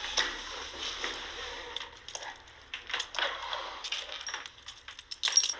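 Small handling noises: a string of light clicks, taps and rustles, sharpest at the start and just before the end.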